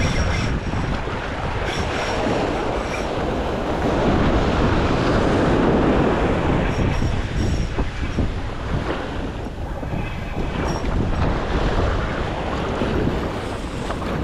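Surf washing up the beach, with wind buffeting the microphone. The wash swells about midway through.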